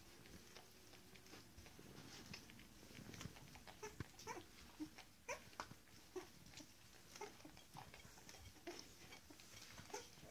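Faint, short whimpers and squeaks from young puppies, about a dozen scattered through the second half, with light clicks and scrapes as they move about.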